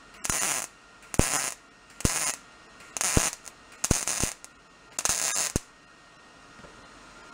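MIG wire-feed welder arc crackling and sputtering in six short bursts about a second apart, stitch-welding a steel bracket in a vise, then stopping a little past five seconds in.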